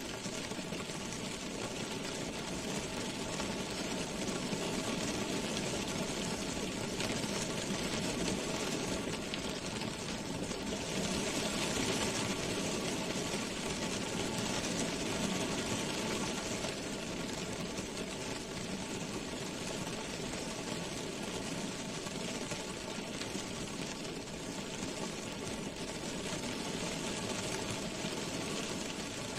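Rain drumming on a car's roof and glass, heard from inside the cabin as a dense, steady patter of drops that grows heavier for a few seconds around the middle, with a faint steady hum underneath.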